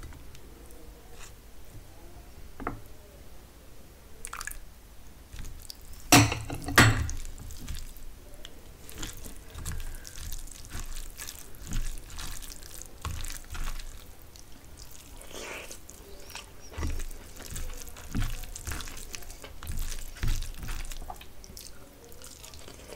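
Fingers mixing mutton biryani on a steel plate: small wet, sticky clicks and squishes of rice and meat being worked by hand. Two sharp knocks come about six and seven seconds in.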